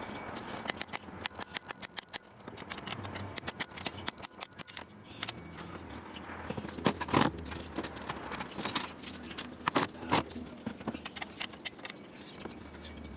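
Metal hand tools clicking and clanking against each other and the engine, with a quick run of clicks about a second in and a few louder metallic knocks around the middle, while a cylinder head bolt is worked on.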